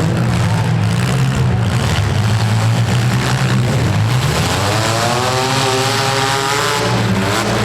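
Demolition-derby compact cars' engines running loud, one revving up and back down from about four seconds in.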